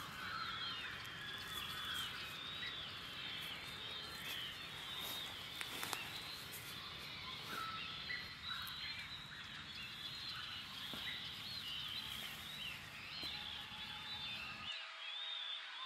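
Many birds chirping and twittering at once in a dense, continuous chorus of short calls, over a low background rumble that cuts off near the end.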